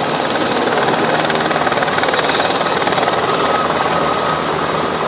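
Helicopter flying overhead, its rotor and engine making a loud, steady noise.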